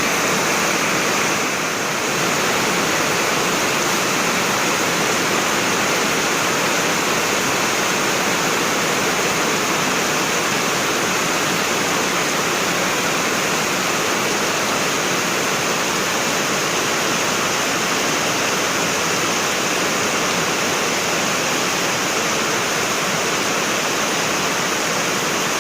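Heavy rain pouring down in a storm: a loud, steady, unbroken hiss.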